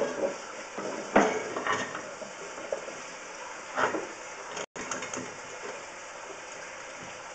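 Sewer inspection camera and its push cable being pulled back up a cast iron soil stack: a few scattered clinks and knocks, about a second in, near two seconds and near four seconds, over a steady hiss.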